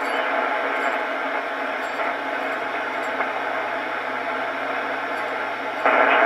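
Steady static hiss from the speaker of a Swan 350 tube ham transceiver as its main dial is tuned across a band with an antenna connected. Just before the end the noise jumps louder as a signal begins to come in.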